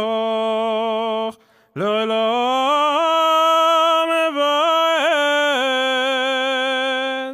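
A solo male voice chanting a slow Ashkenazi High Holy Day prayer melody (Rosh Hashana nusach) in long held notes with small ornamental turns, pausing briefly for breath about a second and a half in.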